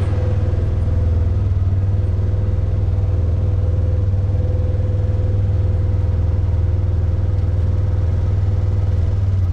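Polaris Ranger side-by-side's engine running at a steady low drone as the vehicle drives slowly, with a steady higher whine above it.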